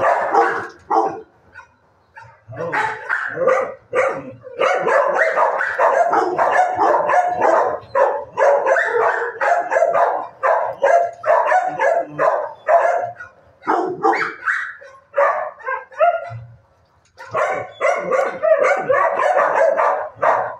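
Dogs barking in shelter kennels: many barks overlapping into a near-continuous din, with brief lulls about a second in and again about four seconds before the end.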